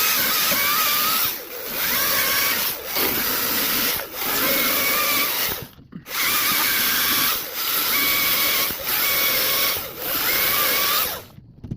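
Dewalt 60 V top-handle battery chainsaw making repeated back-to-back cuts in wood. The motor whines in bursts of about a second and a half, dipping briefly between cuts. It nearly stops once halfway through and cuts off near the end.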